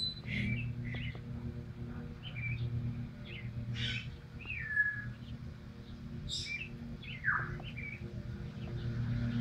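Songbirds chirping: a scatter of short high chirps and whistled notes, a few sliding down in pitch, over a steady low hum.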